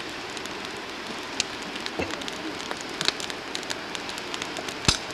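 Campfire crackling: a steady hiss with scattered sharp pops, the loudest one near the end.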